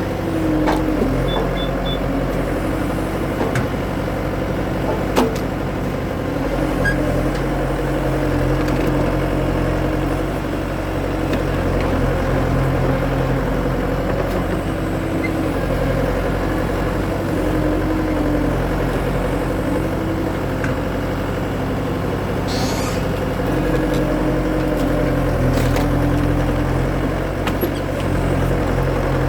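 Skid steer engine running steadily, its note shifting a little every few seconds as it works, with a couple of sharp knocks in the first few seconds.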